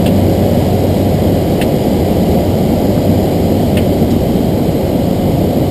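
Steady cabin drone of a Cessna 208B Grand Caravan's Pratt & Whitney PT6A turboprop engine and propeller in flight, heard from the cockpit, with a low hum under it and a few faint clicks.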